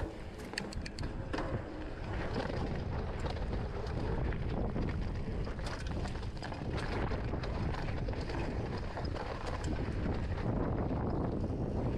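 Wind buffeting the microphone as a steady low rumble, with a quick run of clicks and rattles in the first second or so from a mountain bike rolling off down a concrete ramp.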